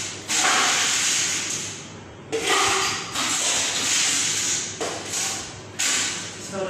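Ice cubes being scooped and poured into a blender jar, a rattling, rushing noise in three separate pours, the last one short.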